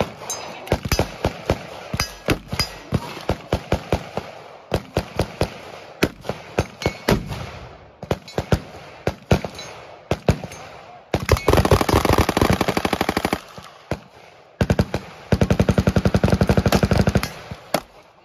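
Gunfire from several guns on a busy range: scattered single shots at an uneven pace for about the first ten seconds, then two sustained bursts of rapid automatic fire, each about two and a half seconds long, starting about eleven and about fifteen seconds in.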